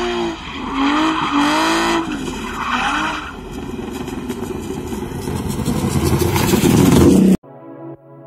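A car's engine revving up and down, then the car accelerating toward the microphone, its engine and tyre noise growing steadily louder until the sound cuts off abruptly about seven seconds in.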